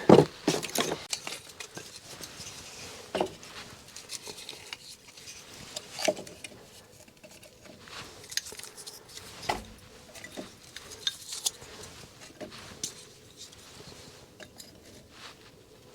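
Scattered light clinks, taps and scrapes of things being handled at a wood stove as a fire is readied, the loudest near the start and about six seconds in.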